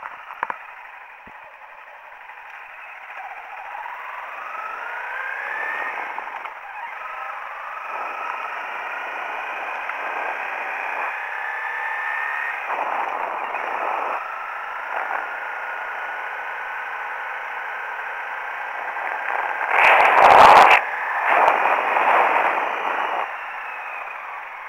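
Honda CRF250L single-cylinder engine under way, its pitch climbing twice as the bike accelerates, then holding fairly steady at cruising speed; it sounds thin and muffled. A loud rushing burst comes about twenty seconds in.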